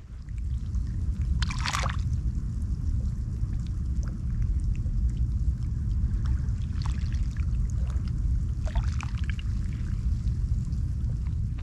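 Shallow estuary water lapping and trickling over foamy mud at the water's edge, with a few brief splashy bursts about two, seven and nine seconds in. Under it runs a steady low rumble of wind on the microphone.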